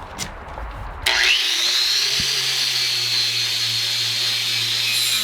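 Electric angle grinder switched on about a second in, spinning up with a quickly rising whine and then running at a steady high whine.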